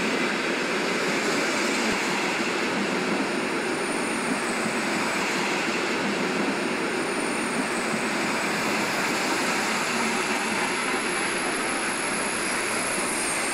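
Sleeping-car coaches of an overnight passenger train from Moscow rolling past at close range: a steady rumble of wheels on rails.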